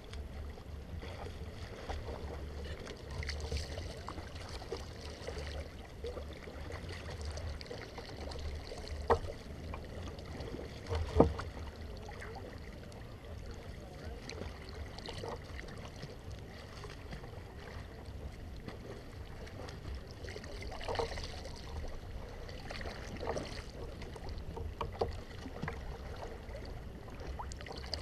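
Kayak paddling: paddle blades dipping and splashing in the water over a steady low rumble. Two sharp knocks come about nine and eleven seconds in, the second the loudest.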